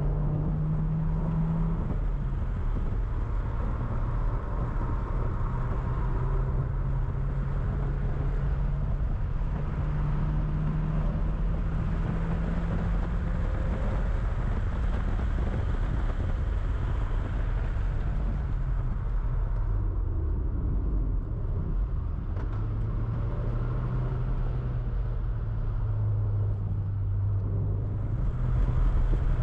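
1992 Toyota MR2's mid-mounted four-cylinder engine heard from inside the cabin while the car is driven at speed on a race track, its note shifting up and down with throttle and gears over road and tyre noise; it gets louder near the end.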